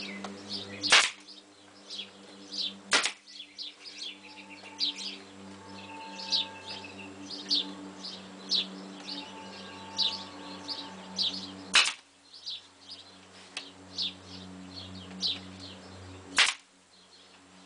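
Pneumatic staple gun firing four sharp shots, driving staples through the lip of a trailer's metal skin into the wood framing. Birds chirp throughout, over a low steady hum.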